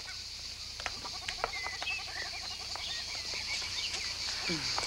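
Outdoor pond ambience: frogs croaking, birds chirping and a steady high insect drone. A short falling vocal sound comes near the end.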